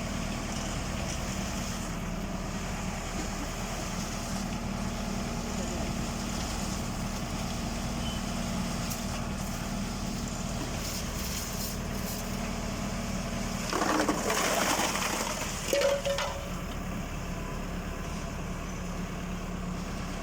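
Tractor engine running steadily, driving a PTO-powered transit concrete mixer. About two-thirds of the way through, a louder rushing noise lasts about two seconds and ends with a sharp clatter.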